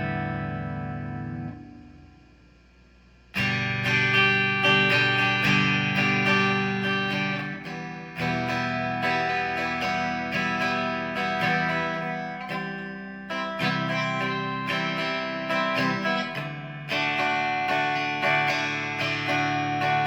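G&L Legacy Tribute electric guitar on its middle single-coil pickup, played through a Line 6 amp on a clean tone. A chord rings and fades almost away about two seconds in, then strummed chords resume, changing chord a few times.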